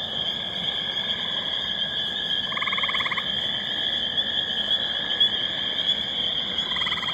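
Dense chorus of spring peepers, a steady high peeping, with a gray tree frog's short pulsed trill breaking in twice, about three seconds in and again near the end.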